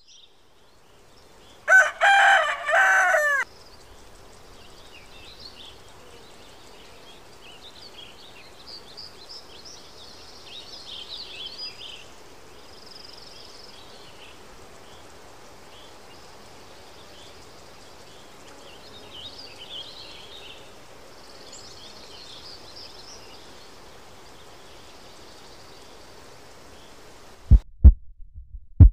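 A rooster crows once, loud and about two seconds long, near the start. Faint twittering of small birds follows. Near the end come two sharp, deep thumps.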